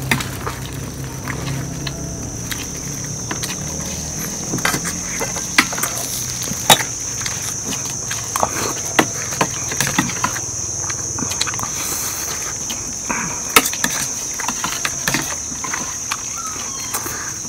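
Steady high-pitched insect buzzing, with frequent sharp clicks and taps of spoons and forks on plates as people eat. A low hum fades out in the first couple of seconds.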